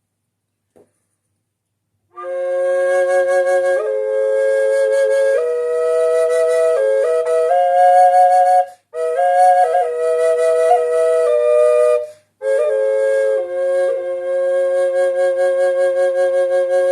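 Native American triple drone flute played dry, with no reverb: three notes sound together, a melody stepping over held drone tones. It starts about two seconds in, breaks twice briefly for breath, and ends on evenly pulsed notes.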